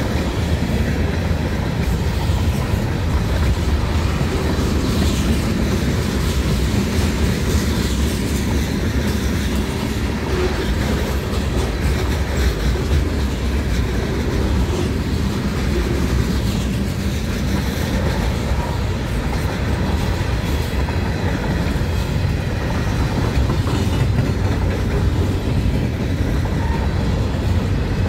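Lake State Railway freight cars rolling past close by: a steady, continuous rumble of steel wheels on rail.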